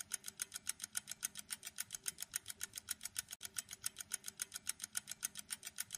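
Countdown-timer sound effect: a clock ticking fast and evenly, about seven ticks a second.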